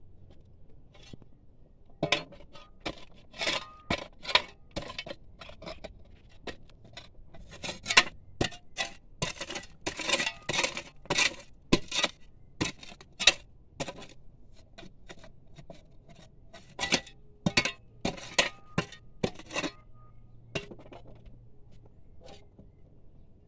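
Sharp metallic clinks of a hammer striking a steel chisel to break rock. The blows come in irregular runs, starting about two seconds in and stopping a few seconds before the end.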